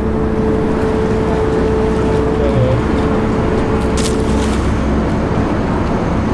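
Car ferry's engines running steadily: a low rumble with a constant hum over it. A brief sharp sound comes about four seconds in.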